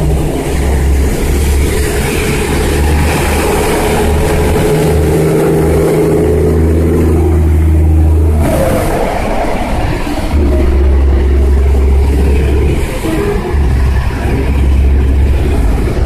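Road traffic in heavy rain, with a deep engine rumble that comes and goes. Cars drive through standing water on the wet road, tyres hissing and throwing up spray.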